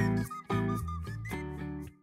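Background music with a run of pitched notes, ending just before the end.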